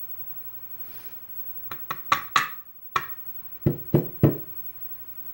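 Sharp metallic clicks and knocks from handling a Euro lock cylinder while its driver pins and springs are worked out of the housing. About eight of them come in a cluster starting a second and a half in; the first few are brighter, the last three duller.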